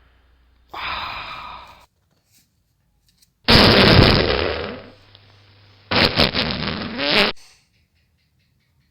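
Three fart sounds from a dog, each a second or so long, with short quiet gaps between them; the middle one is the loudest, and the last one sputters in quick pulses.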